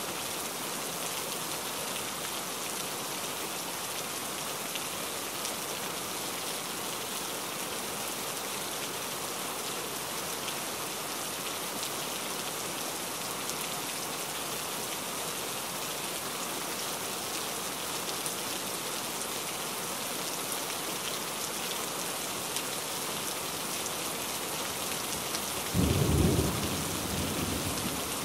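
Steady rain falling, with a sudden low rumble of thunder near the end that fades over about two seconds.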